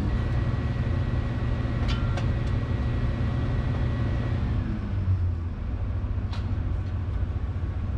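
Excavator diesel engine running under load with the hydraulics working, heard from inside the cab. A steady high whine sounds for the first four seconds or so, then slides away, and there are a few faint clicks.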